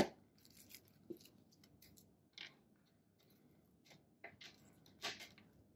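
Handling of a cheap electric massager's electrode pads, leads and plastic packaging: a few faint, short rustles and crinkles, the strongest about five seconds in.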